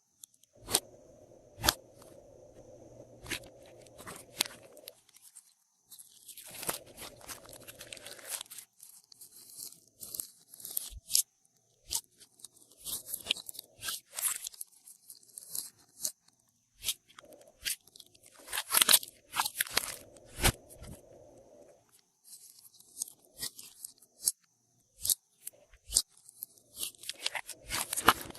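Glossy slime being squeezed and kneaded by hand with mixed-in add-ins, giving irregular runs of sharp crunchy clicks and pops.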